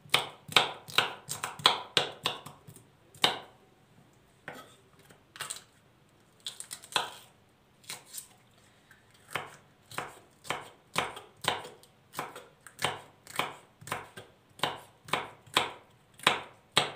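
Kitchen knife chopping green peppers on a plastic cutting board: a run of sharp knocks about two to three a second, thinning to a few scattered ones for several seconds in the middle before picking up again.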